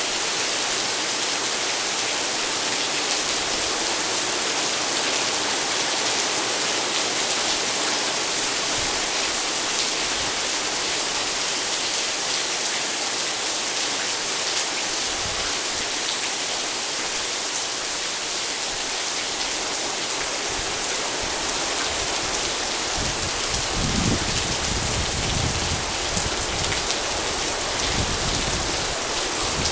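Heavy rain falling steadily, a dense even hiss. In the last several seconds irregular low rumbles come in under it.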